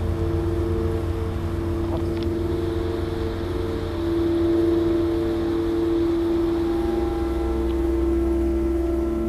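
Ambient music: sustained low drone chords, with higher held notes joining about seven seconds in.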